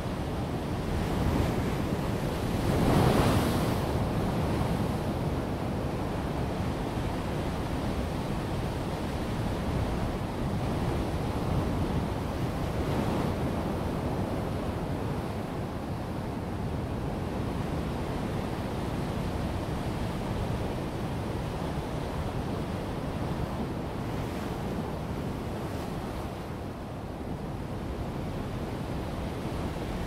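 Ocean waves breaking against a rocky shoreline and pouring off the rock ledges in a continuous rush of surf. The biggest crash comes about three seconds in, with smaller surges later.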